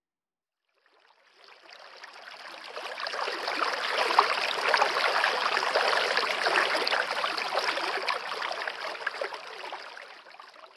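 Shallow river flowing over a stony bed: a steady rush of water that fades in over the first few seconds and fades out near the end.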